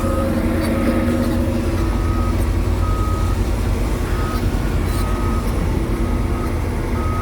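Heavy diesel engine of a crane running steadily, with its warning alarm sounding a single-pitched beep about once a second.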